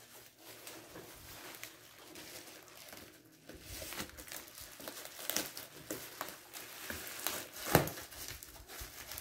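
Plastic wrapping and bubble wrap crinkling and rustling as scissors cut and tear into a taped parcel, with irregular crackles and one louder sharp crack late on.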